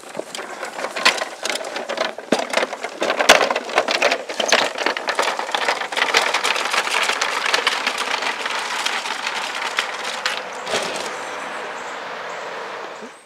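Wooden-sided pull wagon rattling and clattering as it rolls over bumpy lawn, a rapid, irregular stream of clicks and knocks, giving way to a steadier rushing noise near the end.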